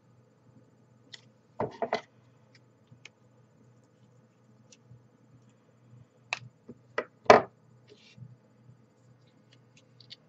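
Hands handling the plastic tray and small wrapper of a DIY candy kit: short plastic clicks and crinkles in two bunches, about two seconds in and again around seven seconds in, the loudest just after seven seconds.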